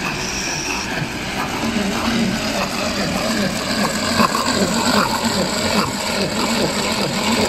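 Tupperware Speedy Chef hand-crank mixer being cranked steadily, its gears whirring and its whisks churning sugar, water and instant coffee as they whip into dalgona foam.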